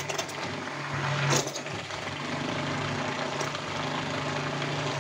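Electric stick blender running in a bowl of cold-process soap batter, a steady motor hum with a brief louder surge about a second and a half in, stopping near the end. The batter is being blended to thicken it toward trace.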